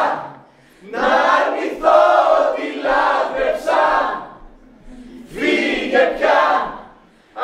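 A chorus of actors' voices in unison, in two loud phrases split by a short pause, the first starting about a second in.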